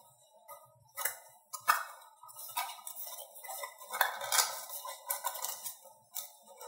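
Small cardboard box being opened by hand: irregular scraping and rubbing of the cardboard, with small clicks and taps as the end flap and inner tray are worked loose.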